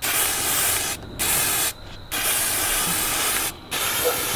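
Aerosol can of chalk spray paint hissing as it sprays, in four long bursts with short breaks between them.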